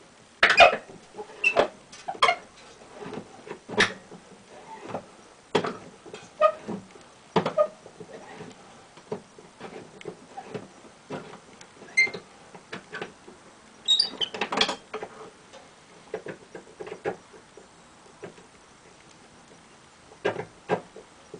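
Quarter-inch Allen wrench turning out a pinball machine's back box hinge bolt: irregular metallic clicks, clinks and scrapes as the key turns and is repositioned, with now and then a brief ringing ping.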